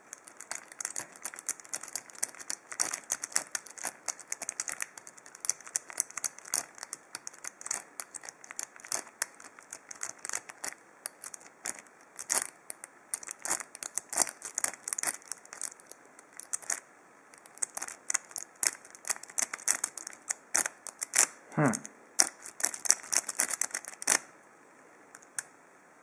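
Triple-peak rake scraping rapidly in and out of the keyway of a 7-pin ASSA steel padlock, a fast run of metallic clicks and scrapes as the rake strikes the pins. It pauses briefly a couple of times and stops near the end.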